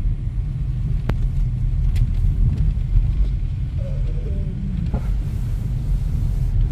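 Steady low rumble of a moving car heard from inside the cabin: engine and tyre road noise while driving, with a faint click about a second in.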